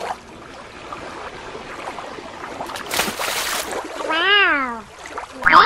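A person's wordless sing-song call, one drawn-out vowel that rises and then falls in pitch, about four seconds in. It comes after a short hiss of noise about three seconds in, over quiet background noise.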